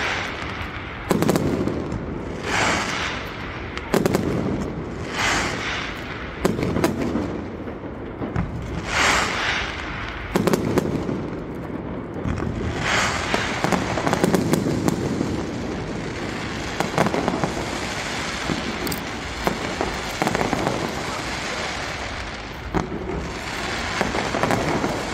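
Aerial fireworks shells bursting in a series of sharp bangs, about one every second and a half at first. From about halfway through, the bangs come faster over a steady crackle.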